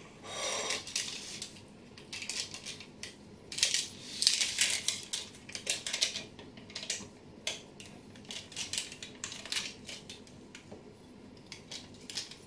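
Large kitchen knife cutting through a slab of baked brownie on baking paper: irregular short crackles and scrapes as the blade presses through the crust and crinkles the paper beneath. The sounds come thickest a few seconds in and thin out towards the end.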